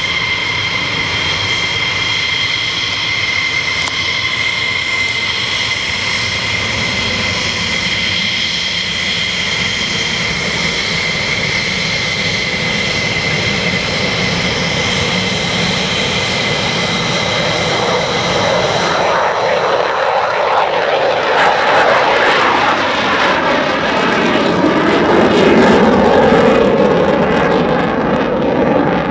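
F-15E Strike Eagle's twin jet engines with a steady high whine while the jet taxis. About two-thirds of the way in the whine gives way to a broad, crackling roar as the engines go to takeoff power, loudest near the end as the jet climbs away.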